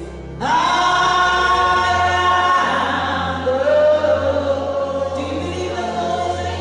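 A group of voices singing gospel music together, holding long notes, with a steady low note sounding underneath from about a second and a half in.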